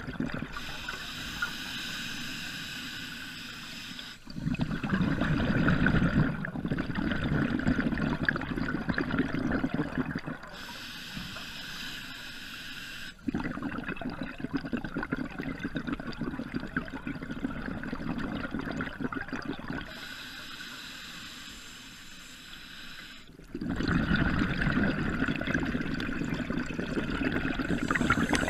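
Scuba diver breathing through a regulator underwater: a few seconds of quieter inhale hiss, then a longer, louder burble of exhaled bubbles, about three breaths in all.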